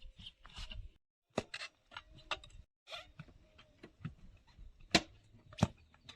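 Metal tyre levers knocking and clinking against a wheel rim while the tyre bead is worked back on, with scraping between the strikes. The two loudest knocks come about two-thirds of the way in.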